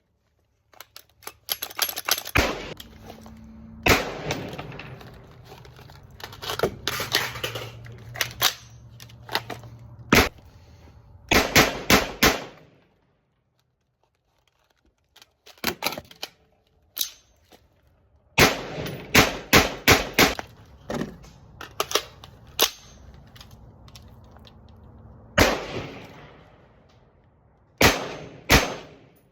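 HS Produkt VHS-2 bullpup rifle in 5.56x45 NATO firing strings of quick semi-automatic shots: several volleys of sharp reports separated by short pauses, with a silent break about halfway through.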